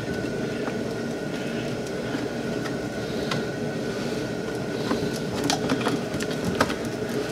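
Scattered light plastic clicks and taps as a 12-volt power port is pressed into a plastic dash panel by hand, over a steady background hum with a faint high tone.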